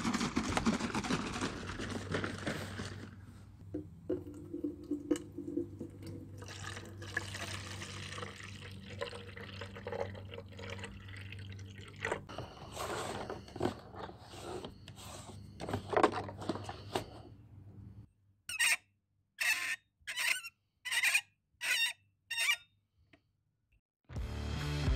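Liquid being poured from a plastic jug into a hose-end sprayer bottle, with uneven splashing over a steady low hum. Near the end come about seven short separate bursts of sound with silence between.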